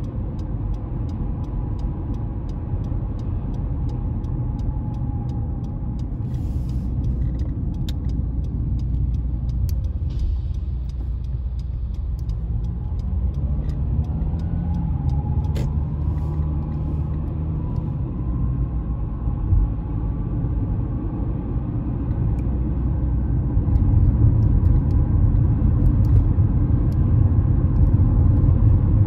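Honda CR-V driving, heard from inside the cabin: a steady low rumble of road and engine noise. The engine pitch rises about halfway through, and the rumble grows louder in the last few seconds.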